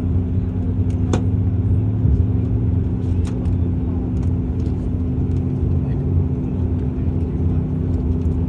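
Dash 8 Q400's Pratt & Whitney PW150A turboprop engine starting, its propeller turning slowly, heard from inside the cabin as a steady low drone with a constant hum.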